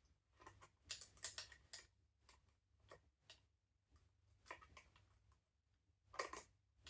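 Quiet, irregular small clicks and scrapes of a tool working the screws under a Weihrauch HW97K air rifle's stock, as the trigger-guard screws are undone. The clicks come in short clusters: about a second in, again near three seconds, and just after six seconds.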